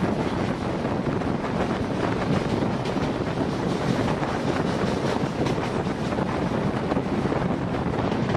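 Passenger train running at speed, a steady rushing rumble with wind buffeting the microphone.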